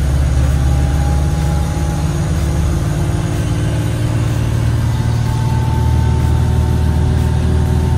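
Minibus engine and road noise heard from inside the moving passenger cabin: a steady low drone, with a faint higher whine over it.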